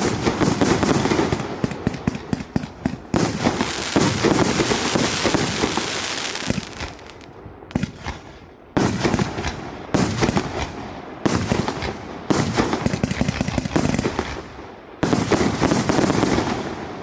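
A firework display battery (cake) firing in rapid volleys of shots and crackle. It comes in about six sharp-onset groups with brief lulls between them, and the last group fades out near the end.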